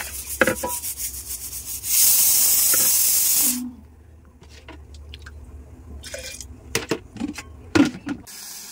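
Rice being washed in a pot: water pours in for about a second and a half, then a hand swishes and rubs the grains in the water, with a few knocks against the pot near the end.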